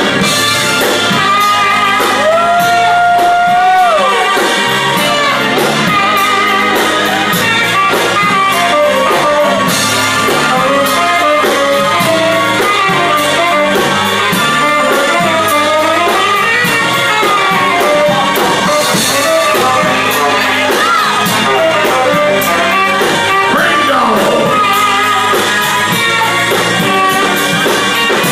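A band-backed song with guitar and a singing voice, with a long held note a couple of seconds in.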